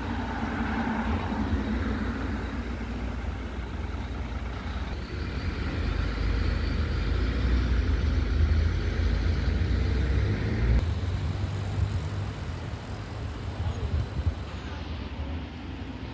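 Outdoor town ambience: a steady low rumble under a faint even hiss, changing character about two thirds of the way through.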